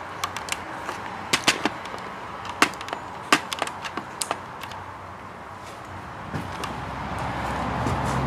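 Dry snapping and cracking: about a dozen sharp, irregular snaps over the first four and a half seconds. Near the end a road vehicle grows louder.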